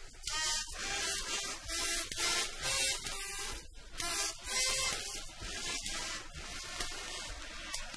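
A worn 1960s recording of a song playing, its music faint under heavy hiss and surface noise.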